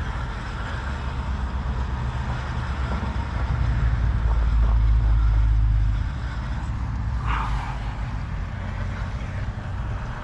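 Road traffic on the adjacent street: a steady low engine and tyre rumble that swells as a vehicle passes close, about four to six seconds in, then eases. A short hiss comes about seven seconds in.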